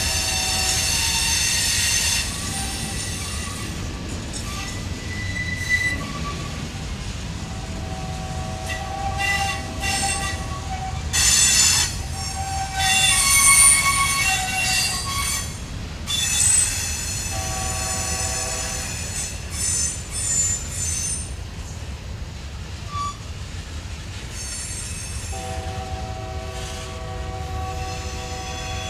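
Freight cars' steel wheels squealing as they roll through a curve, in repeated high-pitched bouts that come and go, loudest in the middle, over the steady low rumble of the passing train.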